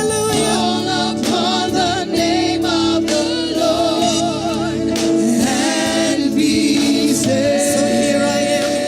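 Gospel worship music: a choir and singers with band accompaniment, the voices wavering and sliding between held notes.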